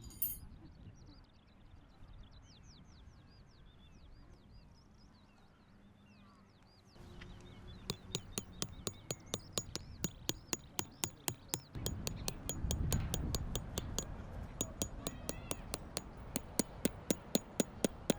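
Birds singing, then from about eight seconds in a hammer striking metal in a fast, even rhythm, about three ringing strikes a second.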